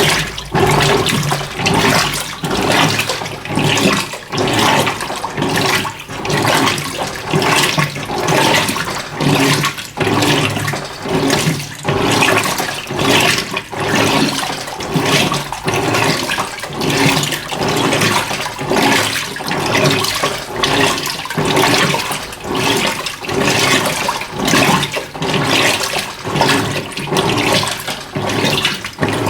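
Electrolux LF90 top-loading washing machine agitating a load of rugs in a low water level: water sloshing and churning in a steady back-and-forth rhythm, about once a second, over the hum of the motor.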